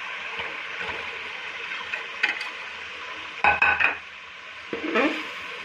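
Minced mutton sizzling as it hits hot oil and masala in a steel pot, with a metal spatula scraping against the pot as it is stirred in. Several louder scrapes stand out, the strongest a little past halfway.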